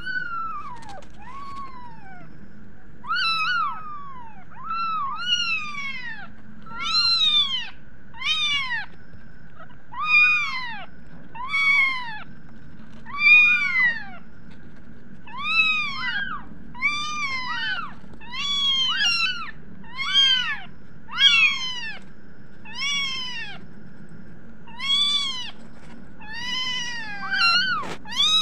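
Very young kittens mewing over and over: short, high calls that rise and fall in pitch, about one a second, now and then two at once.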